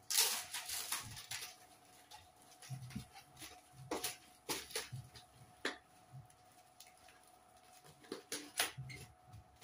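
Plastic bag crinkling and rustling in irregular bursts as a bag of cotton candy is handled, folded and tied shut, over a faint steady hum.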